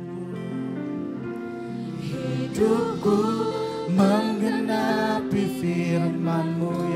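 Worship band playing sustained keyboard chords under a slow Indonesian worship song. About two and a half seconds in, a male lead singer and two female backing singers come in strongly, singing together.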